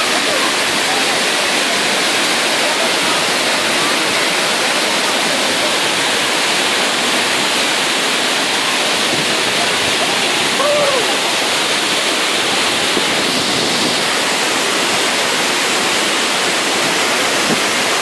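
Large waterfall pouring down a rock face: a steady, loud rush of water. Faint human voices rise over it now and then, one near the middle.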